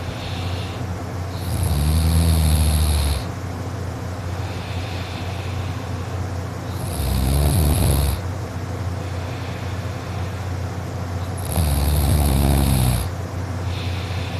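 A sleeping boy snoring loudly: three long snores about five seconds apart, each lasting over a second, with softer breaths between them.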